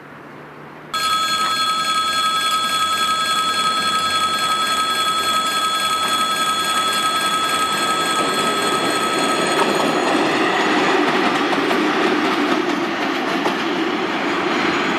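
A two-section VL11 DC electric locomotive approaches and passes on the tracks; its wheel and rail noise swells from about ten seconds in. Before that, from about a second in, a steady high ringing tone of several fixed pitches sounds and then stops.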